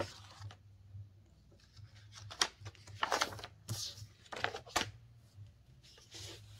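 Paper pages and plastic packaging of a cross-stitch kit rustling and crinkling as they are handled, in short irregular rustles with a few sharper crackles over a low steady hum.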